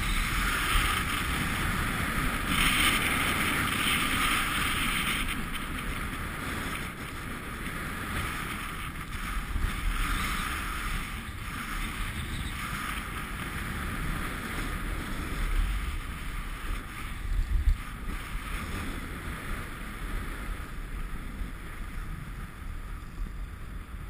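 Skis sliding and hissing over snow on a downhill run, with wind rushing and rumbling on the camera microphone; the hiss is loudest a few seconds in.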